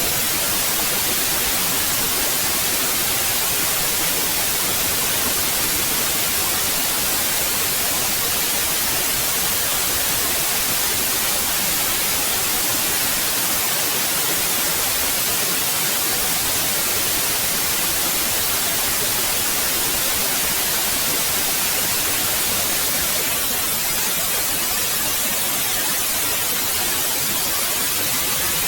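Steady, even white noise, an unchanging hiss brightest in the treble.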